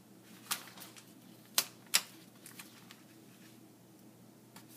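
A few sharp clicks and crackles of a vinyl backsplash sheet being handled and positioned against the wall, the loudest two close together about a second and a half in.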